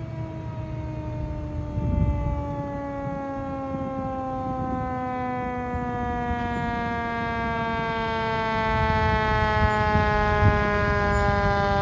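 A fire water tender's mechanical siren winding down in one long, slowly falling tone, while the Ford tanker's engine and tyres grow louder as it approaches.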